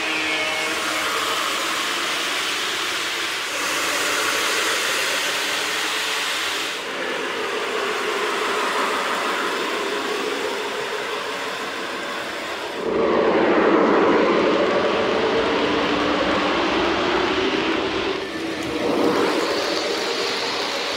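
Lionel O gauge passenger train running at high speed on three-rail track: a steady rolling rumble of wheels on rail, louder for a few seconds in the second half as the cars pass close by.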